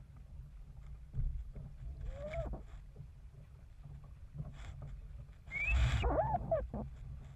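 Wind rumbling on the microphone of a sailing dinghy under way, with a short wavering cry about two seconds in and a louder, longer one, falling then rising and falling in pitch, about five and a half seconds in.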